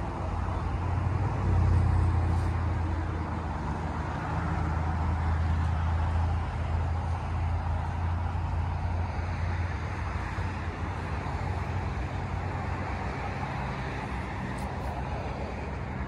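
Road traffic noise: a steady low rumble of passing vehicles, swelling about two seconds in and again around six seconds.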